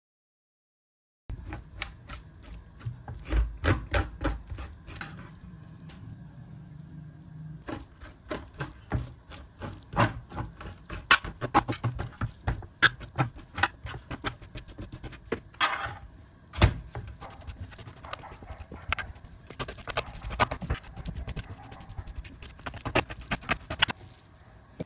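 Metal spoon scraping raw salmon flesh off the fish's skeleton and skin on a baking tray: an irregular run of quick scrapes and clicks as the spoon catches the rib bones and knocks the tray, starting about a second in.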